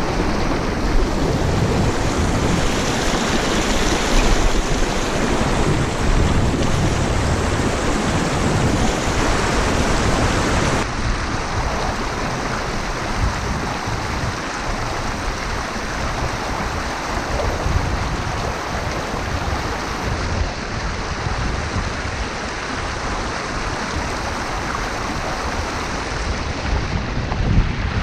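River rapids rushing and foaming past the rocks of a stone breakwater. The noise is loud and steady, and a little softer after about eleven seconds.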